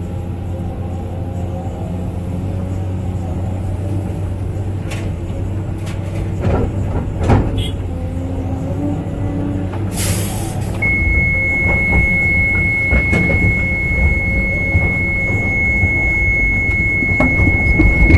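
Cat 325D excavator's diesel engine running under load, heard inside the cab, with the hydraulics working as it digs. A few knocks about six to seven seconds in, a short hiss about ten seconds in, then a steady high-pitched tone that holds to the end.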